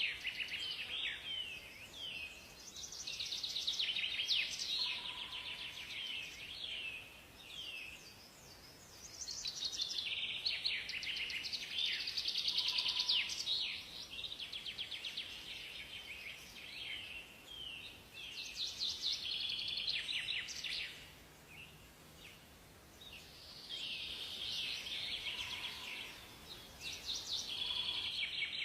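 Several songbirds singing in overlapping bouts of rapid, high chirps and trills, with short lulls between bouts and a few brief low whistled notes, over a light steady background hiss.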